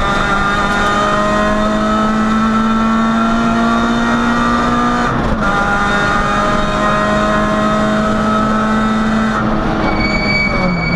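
Peugeot 106 rally car's four-cylinder engine at full pace on a special stage, heard from inside the cabin: the engine note climbs steadily, drops at a gear change about five seconds in, then climbs again, and changes again near the end.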